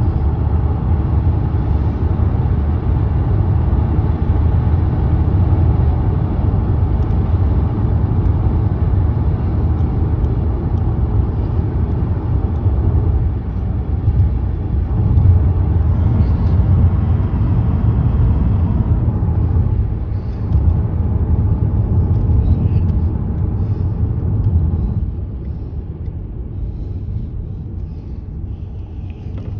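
Car driving on a road, heard from inside the cabin: a steady low rumble of tyres and engine. It becomes quieter about 25 seconds in.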